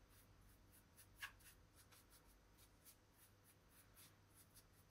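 Faint scrubbing: a small brush worked back and forth with cleaning paste on the side of a steam iron, in short scratchy strokes, one a little louder about a second in.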